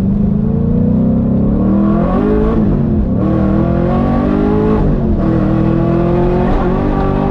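LS3 V8 in a Nissan 350Z, heard from inside the cabin, accelerating hard through the gears. The engine note climbs, drops sharply at an upshift about two and a half seconds in and again about five seconds in, then climbs once more.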